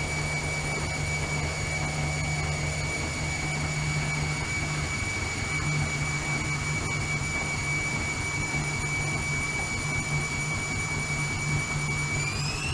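Bauknecht WAK 5750 G washing machine spinning, its brushed motor giving a steady high whine over a low hum; near the end the whine starts to climb as the drum speeds up.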